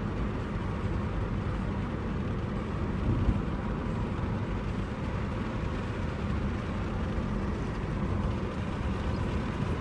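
Steady road and engine rumble inside the cabin of a moving car, with a brief bump about three seconds in.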